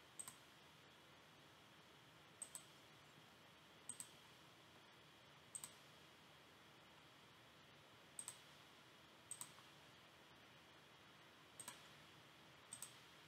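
Computer mouse button clicks, about eight, each a quick double tick of press and release, a second or two apart over faint room hiss.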